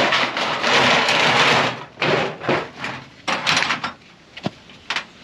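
A scraping, rustling noise close to the microphone for about two seconds, then a scatter of sharp knocks and clunks.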